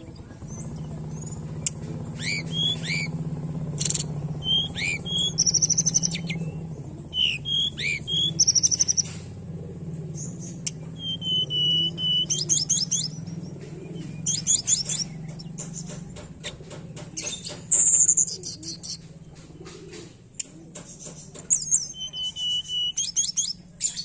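Hill blue flycatcher (tledekan gunung) singing: repeated phrases of clear high whistles and quick trilled runs, every second or two. A low steady hum lies under the song and fades out about two-thirds of the way through.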